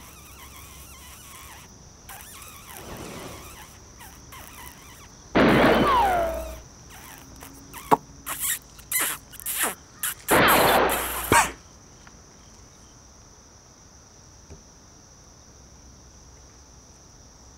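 A steady high, insect-like chirring, broken by two loud harsh noisy bursts, the first with a falling pitch, and a flurry of short clicks and scrapes between them.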